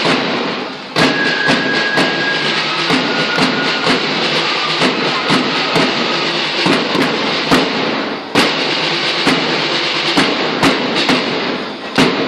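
School marching band playing: a dense, continuous rattle of drums with sharp strikes, and a few short held high notes over it. The drumming briefly drops away about a second in and again about eight seconds in, then comes back with a hit.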